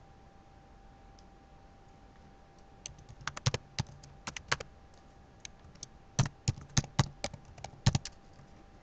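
Computer keyboard typing: irregular keystrokes in short runs, starting about three seconds in, over a faint steady hum.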